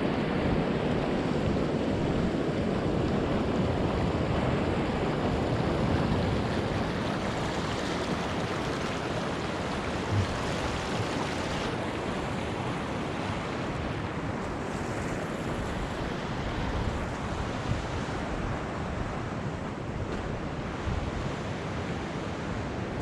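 Steady roar of Pacific surf mixed with a stream running hard across the shore, with wind on the microphone. The rush is fullest at first and eases slowly.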